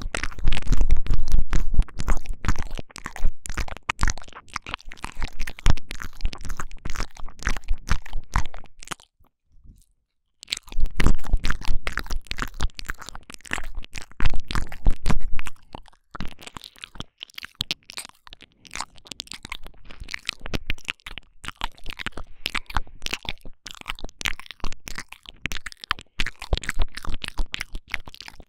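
Intense wet mouth sounds right up against a binaural microphone, the ASMR 'ear eating' trigger: a dense run of tongue clicks, smacks and crackles, with tongue shaking. The sound breaks off for about a second near the middle, is heavier and deeper at the start and again for a few seconds after the break, then goes on as lighter, sparser clicking.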